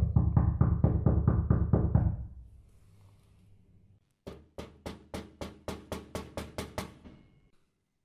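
Knocking on a door, two separate takes. First comes a rapid, heavy pounding of about ten blows in two seconds. After a short pause there is a lighter, sharper run of about a dozen knocks at about four a second.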